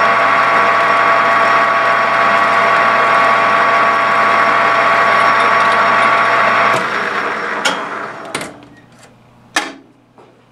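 Metal lathe running with a steady gear whine while a center drill cuts into the end of the spinning rod. About seven seconds in the lathe winds down and stops, and three sharp metallic clicks or knocks follow.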